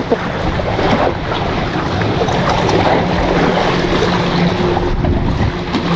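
Wind buffeting the microphone over waves washing against the rocks of a breakwater, a steady rush with no let-up.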